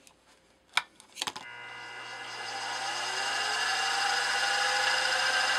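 Drill press switched on with a couple of clicks about a second in; its motor spins up, a whine rising in pitch over a steady hum, growing louder and then running steadily at speed.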